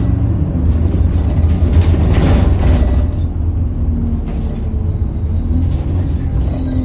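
ADL Enviro200 single-deck bus heard from inside: a steady low diesel engine rumble with a thin, high turbocharger whistle that slides slowly down in pitch. Short bursts of hiss come in the first half.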